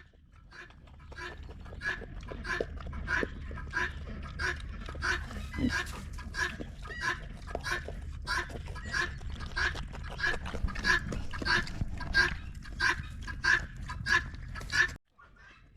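Geese honking over and over, a steady run of short calls about two or three a second.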